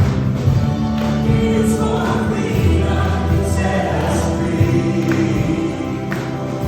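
Christian praise-and-worship song: a group of voices singing together over instrumental backing with sustained bass notes.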